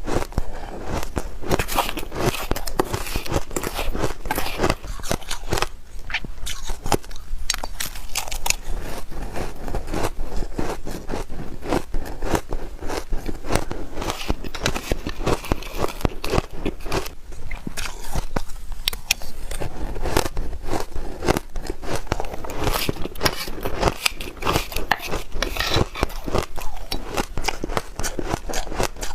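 Close-miked biting and chewing of soft shaved ice: dense, irregular crunching and crackling.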